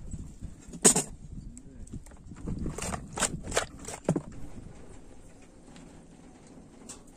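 Fish being handled and rubbed with lime in a plastic bucket: a sharp knock about a second in, then a cluster of taps and clicks, after which it goes quieter.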